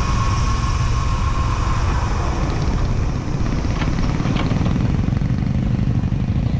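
Motorcycle engine running on the move, with heavy wind noise on the bike-mounted microphone.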